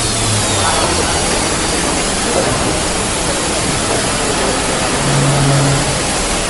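Five-axis CNC woodworking router running: a loud, steady machine noise with a low hum that swells briefly about five seconds in.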